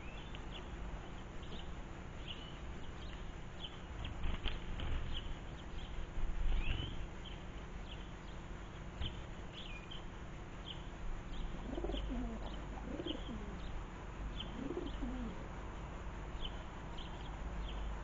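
Small garden birds chirping over and over, with a pigeon cooing three times in the later half. A few low thuds, about four to seven seconds in, are the loudest sounds.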